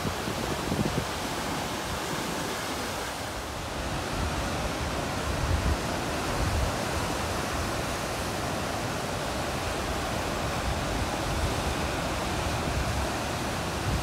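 Ocean surf breaking over coastal rocks and washing through the gaps between them: a steady rush of white water.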